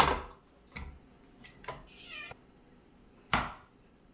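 A kitten meows once, about two seconds in, a short call falling in pitch. Around it come sharp metal clunks and clicks from a KitchenAid stand mixer's steel bowl and paddle being handled; the two loudest clunks are at the start and about three seconds in.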